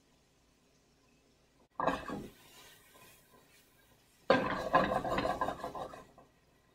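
Nonstick frying pan of diced chicken being tossed to flip the pieces: a short clatter about two seconds in, then nearly two seconds of the pieces sliding and rattling in the pan as it is shaken.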